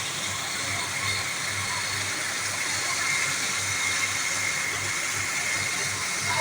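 Diamond wire saw running through concrete: a steady hiss with a low throb pulsing about twice a second.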